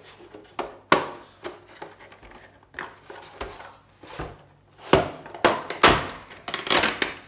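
Hard plastic case of an electronics box knocking and clicking as it is handled and prised open. A few scattered knocks at first, then a quicker run of louder clicks and cracks over the last two seconds or so.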